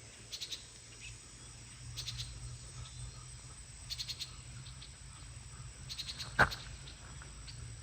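Faint outdoor insect chirping: short groups of fine high-pitched pulses repeat about every two seconds over a low steady hum. A single brief, sharper sound stands out about six and a half seconds in.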